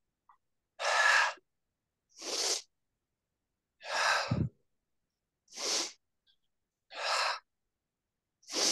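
A woman breathing hard into a close microphone while working against the reformer springs: six short audible breaths, about a second and a half apart.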